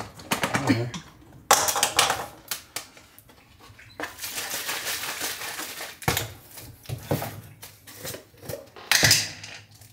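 Plastic supplement tubs, lids and scoops clicking and knocking on a stone kitchen counter as powders are measured out, with a soft rustle in the middle and one louder knock near the end.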